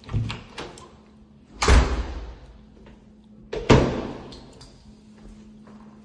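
Interior door being handled and pushed open: a few light knocks, then two loud door thumps about two seconds apart, each ringing on briefly in the room.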